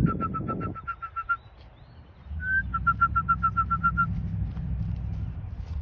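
A person whistles to call racing pigeons in to the loft, twice: each time a short rising whistle, then a quick run of short, even pips at one pitch. A low steady rumble comes in about two seconds in.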